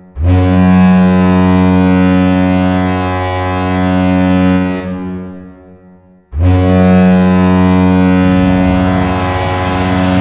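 Hockey goal horn, a deep air horn, sounding two long blasts: the first lasts about five seconds and fades out, and the second starts about six seconds in and is still sounding at the end.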